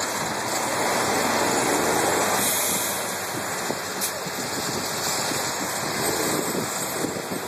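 Garbage truck stuck in deep snow with its tyres spinning: a steady rushing noise that swells about one to three seconds in.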